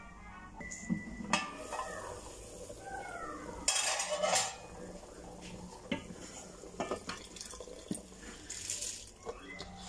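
Metal kitchenware clatter: an aluminium pot lid is handled and lifted off with clinks and scrapes, then a steel bowl clinks against the pot rim as rice is tipped into the boiling broth near the end.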